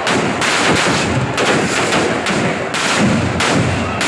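Firecrackers packed inside a burning Ravana effigy going off in a rapid, dense string of loud bangs, with only brief lulls.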